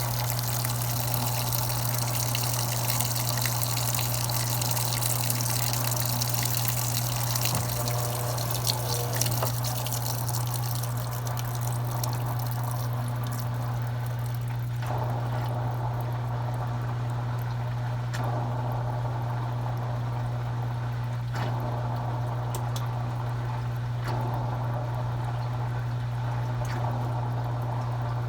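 Consul Cargo 8 kg washing machine with water running through it over a steady electric hum. The water hiss is strongest for the first dozen seconds, then dies down to softer recurring swells while the hum carries on.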